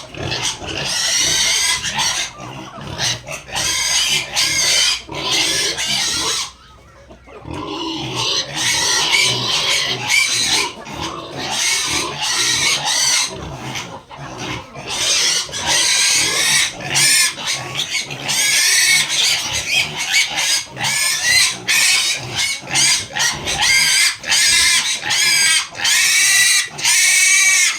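Farm animals calling almost without pause, many short high-pitched cries overlapping one another, with a brief lull about seven seconds in.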